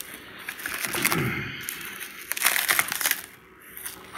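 Clear plastic stretch wrap crinkling and rustling as it is handled, in irregular bursts, loudest a little over two seconds in.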